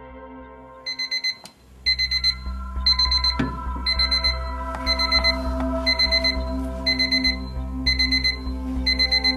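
Newgate Mini Quad battery alarm clock's electronic alarm beeping: short bursts of rapid high beeps about once a second, starting about a second in.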